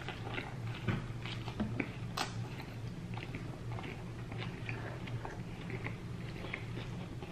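A man biting into a large steak burrito and chewing it close to the microphone: many small mouth clicks and smacks, with a sharper click about two seconds in. A steady low hum runs underneath.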